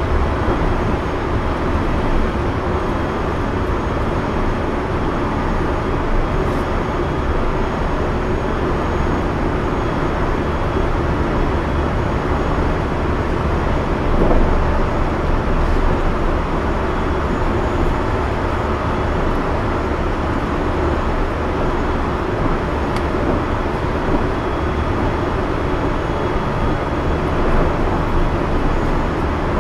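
JR Central 373 series electric train running at steady speed, heard from inside its motor car: a steady running rumble of wheels on rail and running gear, with a brief louder bump about fourteen seconds in.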